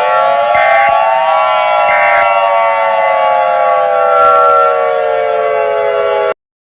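Civil defense siren wailing in several tones at once: the pitches rise over the first second and a half, then slowly fall, with a short higher blip twice in the first two seconds. It cuts off suddenly near the end.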